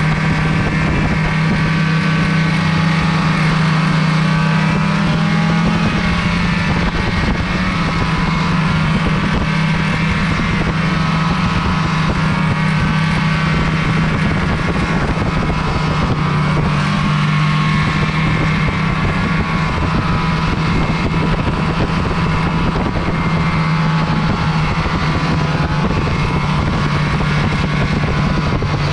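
Snowmobile engine running steadily at trail speed, its pitch rising and falling slightly with the throttle.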